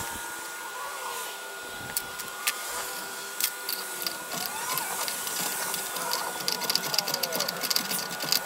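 A wrench and a brass quick-connect coupler clicking, metal on metal, as the coupler is threaded and tightened into an aluminium air-line manifold. The clicks get quicker and denser toward the end, over a faint steady background with some gliding whistles.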